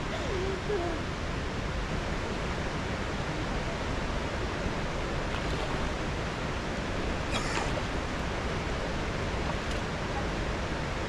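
Steady rush of flowing water over rocks at a creek waterhole, with a short voice sound at the start and a single click about seven seconds in.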